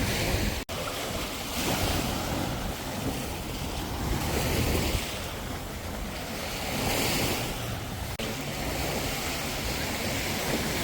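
Sea surf washing onto a sandy beach, the hiss of the waves swelling and ebbing every couple of seconds, with wind rumbling on the microphone. The audio drops out for an instant twice.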